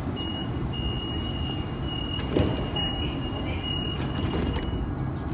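NJ Transit Hudson-Bergen Light Rail car's doors closing: a high warning tone sounds on and off for about four and a half seconds, with a knock about two and a half seconds in, over the low steady hum of the standing train.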